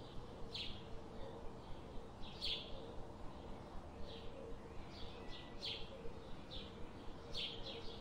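Birds chirping in short, scattered calls, some singly and some in quick clusters of two or three, over a steady low background noise.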